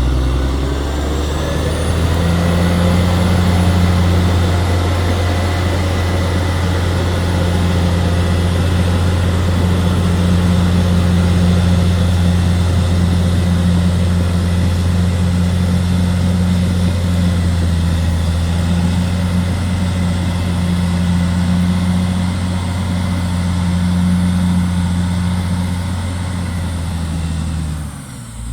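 Caterpillar D6R XL bulldozer's diesel engine revving up over the first couple of seconds, then running steadily with a thin high whine over it. Just before the end the engine note drops briefly.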